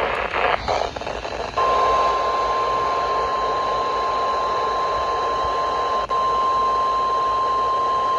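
NOAA Weather Radio broadcast heard through a receiver with steady static. A few short digital data bursts of the SAME alert header come first. About a second and a half in, the steady 1050 Hz weather radio alert tone starts and holds, signalling that a new severe thunderstorm warning follows.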